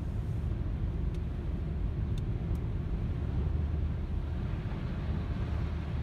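A car driving along a highway, heard from inside the cabin: a steady low rumble of engine and tyre noise.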